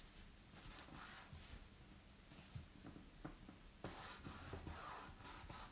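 Faint rustling and rubbing of hands smoothing a glued sheet of foiled paper down onto a card blank, with a few soft ticks; the rubbing gets louder near the end.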